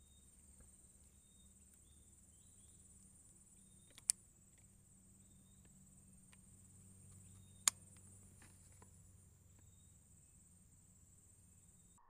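Steady high-pitched insect drone with two sharp clicks from the rifle, about four seconds in and again near eight seconds, and a few fainter clicks around the second one. The first click comes before the caption saying the rifle had not been cocked: a trigger pull on an uncocked rifle.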